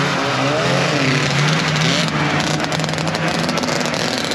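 Vintage two-stroke snowmobile engines running as sleds pull out one after another, the pitch rising and falling with the throttle.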